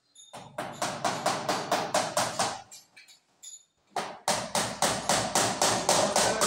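A hammer driving nails into wooden wall panelling with quick, even blows, about five a second. The blows come in two runs of a couple of seconds each, with a short pause between.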